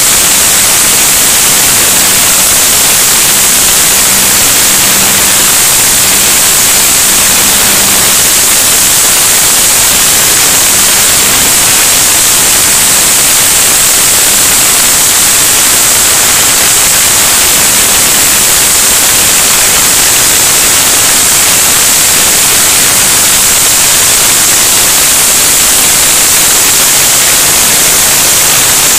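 Mobile pneumatic grain conveyor running: a loud, steady rush of air from its blower as grain is sucked up the hose and blown through the pipe, a constant high hiss. A faint low hum sits under it for the first several seconds.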